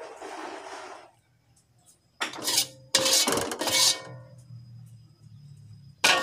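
Metal spatula scraping and knocking against cookware as food is dished out onto a glass plate: a scrape in the first second, two louder scrapes around two and three seconds in, and a sharp clink near the end.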